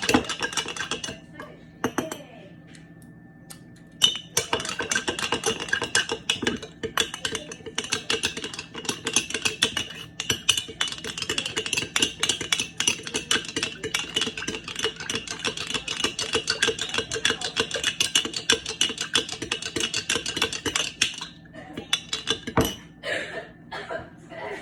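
Rapid, steady clinking and scraping of a utensil against a dish, as in stirring or mixing. It stops briefly about two seconds in, resumes about four seconds in, and gives way to a few scattered knocks near the end.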